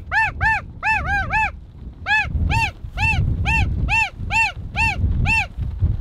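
Snow goose calling: short high yelping honks that rise and fall, about three a second, with a brief pause about a second and a half in. Wind rumbles on the microphone underneath.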